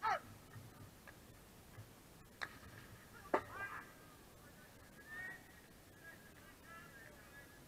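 Faint, distant shouts and calls from hockey players on the pitch: a sharp falling cry at the start, another about three and a half seconds in, and wavering calls later, with a few light knocks in between.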